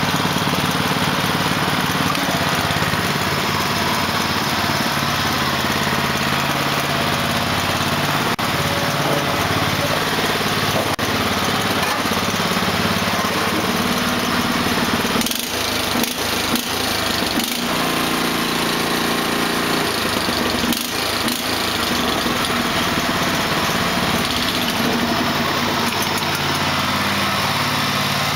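Small engine running steadily at a fairly even speed, with a cluster of knocks and clunks about halfway through and another brief one a few seconds later.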